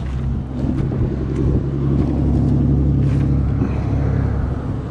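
A vehicle engine idling, a steady low hum that grows a little louder after about a second and eases slightly near the end.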